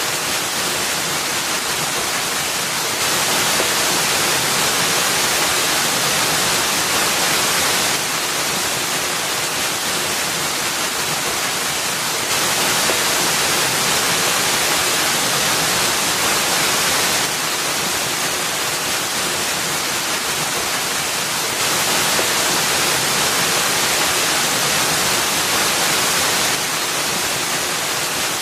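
Waterfall pouring into a rock pool: a steady, bright, hissy rush of falling water whose loudness steps abruptly up and down every four or five seconds.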